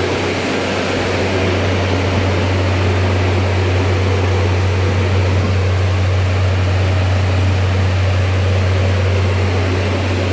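Carrier Xarios 500 truck refrigeration unit running steadily after repair: a constant loud low hum under an even rush of air.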